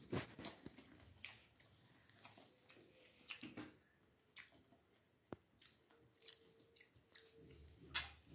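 Faint chewing and crunching of crisp pani puri, with scattered small clicks; the sharpest click comes near the end.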